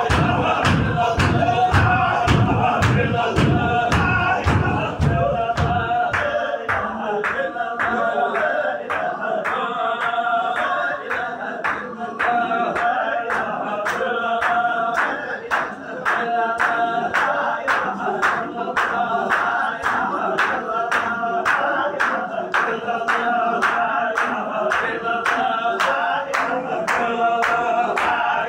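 Group of men chanting a Sufi zikr in unison, with a sharp rhythmic beat about two times a second. Heavy low thumps go with the beat until about six seconds in, then stop.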